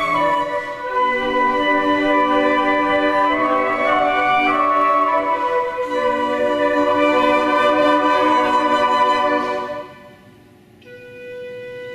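A small flute choir playing sustained, shifting chords in several parts. Near the end the full ensemble cuts off, and after a brief gap a softer, thinner chord enters.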